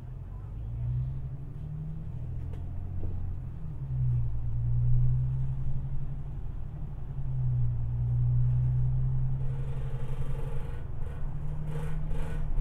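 Bus engine drone heard from inside the cabin while driving, a low steady note that rises in pitch and drops back a few times as the bus speeds up and changes gear.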